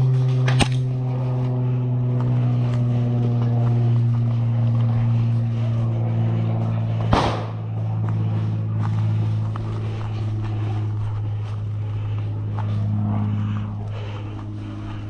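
A steady low hum runs throughout, with a small sharp click just after the start and one loud sharp crack about seven seconds in.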